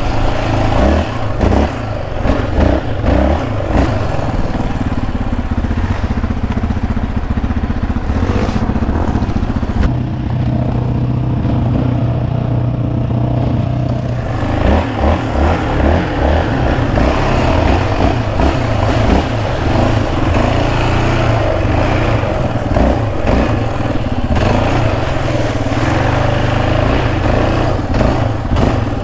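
Yamaha Raptor 700R ATV's single-cylinder engine, fitted with a Monster aftermarket exhaust, running under load on a trail ride, its revs rising and falling as the throttle is worked, with the machine rattling over rough ground.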